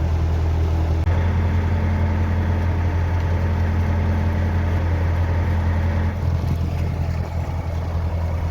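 Narrowboat engine running steadily under way, a low even drone. Its note changes slightly about a second in and again near the end.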